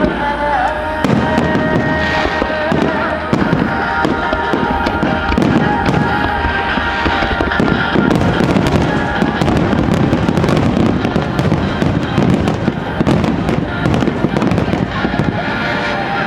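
Starmine firework barrage: many bursts and bangs going off in rapid succession, over music playing along with the display.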